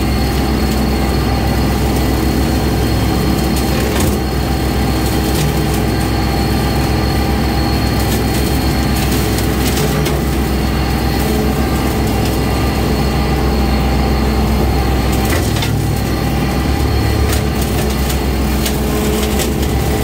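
Kubota compact tractor's diesel engine running steadily while a brush hog cuts through brush, with occasional sharp cracks of sticks and brush snapping.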